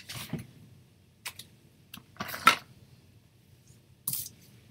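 Craft materials being handled on a tabletop: a sheet of paper laid down and moved about, with a few short rustles and taps, the loudest about two and a half seconds in.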